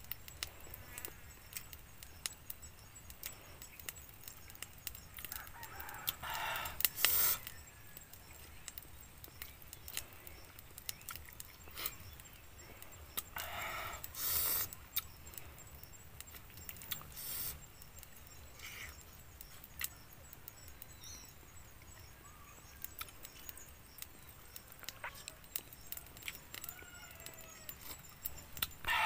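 A rooster crows twice, about six seconds in and again near the middle, with shorter calls after, over small close clicks of eggs being handled and eaten.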